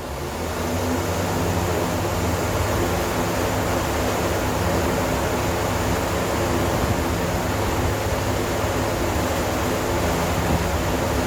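Industrial pressure ventilation fan coming up to speed, reaching full speed about a second in, then running steadily: a loud rush of air over a low motor hum.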